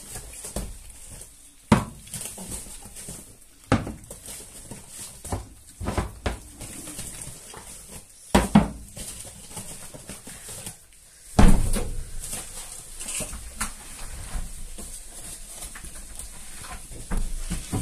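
Dogs feeding, with scattered knocks and clatter of wet-food tins and feeding bowls; one louder knock about eleven seconds in.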